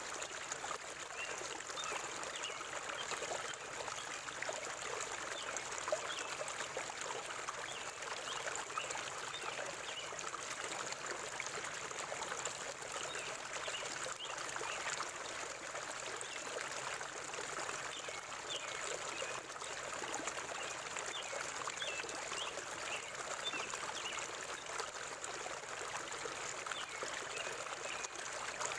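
River water flowing over rocks, a steady babbling and trickling.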